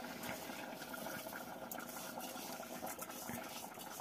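Faint steady hiss with light crackling ticks of chicken simmering in a cooking pot on a stove.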